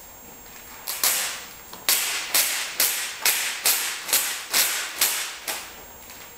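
Clear adhesive mosaic tape peeling off its roll in about ten short pulls, roughly two a second, starting about a second in.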